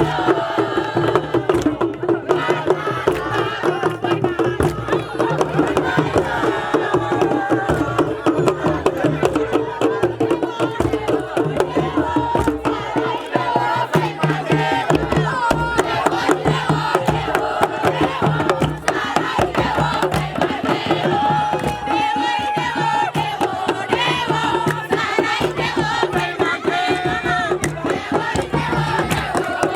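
Music with voices singing or chanting over fast, dense hand drumming.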